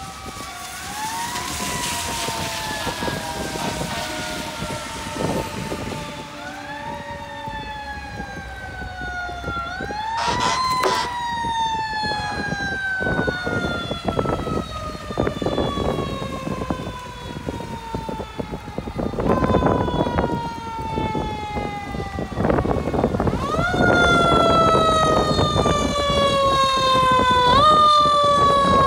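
Siren of a 2015 Spartan Metro Star fire engine (pumper) on an emergency response. Several times its pitch climbs sharply and then winds slowly down, growing louder as the truck approaches.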